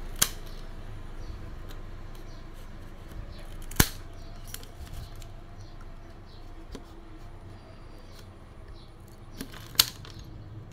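A knife cutting bamboo strips on a woven bamboo basket: scattered light ticks, with three sharp snaps near the start, about four seconds in and near the end.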